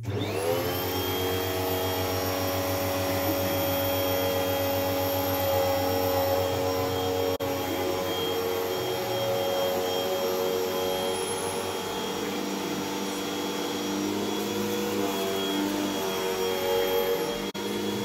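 Vacuum cleaner switched on, its motor rising to speed within about half a second and then running steadily with a high whine over rushing air. The sound breaks for an instant twice.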